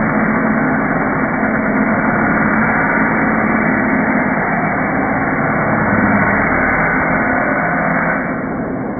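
A machine running steadily with a low hum, its sound changing and dropping slightly near the end.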